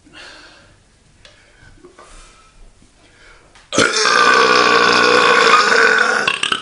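One long, loud belch with a steady pitch, starting nearly four seconds in and held for over two seconds.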